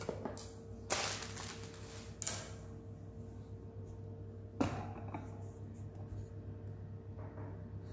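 Objects and packaging being shifted about by hand: a few brief rustles in the first couple of seconds and a single sharp knock a little past the middle, over a steady low hum.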